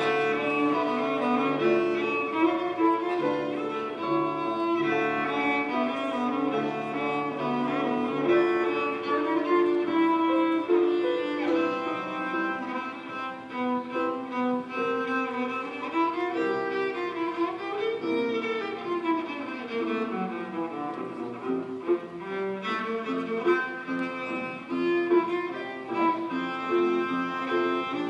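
Unaccompanied cello bowed in a solo melody, one pitched note after another; about two-thirds of the way through, the notes slide up and then back down.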